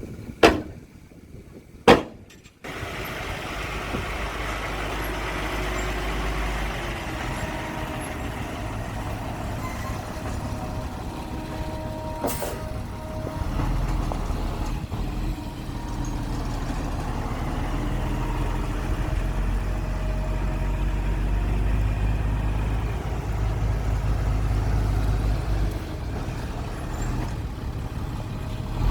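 Heavy diesel engine running steadily, with a slight rise and fall in pitch. It starts abruptly a few seconds in, after two sharp knocks.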